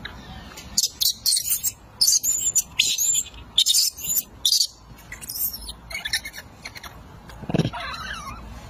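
Baby macaque screaming in a series of loud, shrill bursts over the first five seconds or so, then fainter cries. These are distress calls from a baby being dragged along the ground by another monkey.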